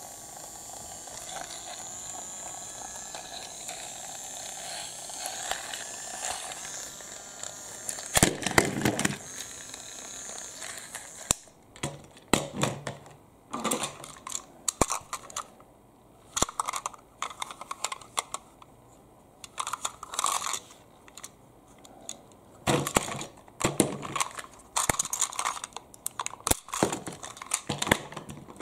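Small electric motor of a battery toy train whirring for about eight seconds while the engine is held off the track. A loud plastic clatter follows, then scattered clicks and rattles as the toy engines are set on the plastic track and pushed together.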